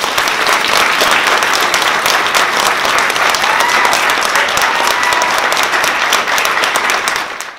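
Audience applauding steadily with many overlapping claps, cut off abruptly near the end.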